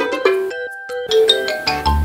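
Bouncy children's cartoon music with bright struck, bell-like notes over a low beat; it breaks off briefly just before a second in, then picks up again.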